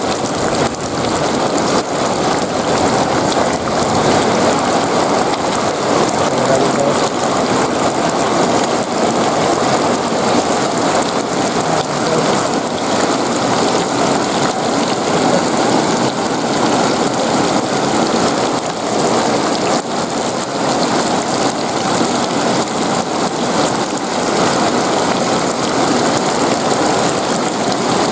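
Heavy rain pouring onto flooded ground and puddles: a dense, steady hiss of drops splashing into standing water.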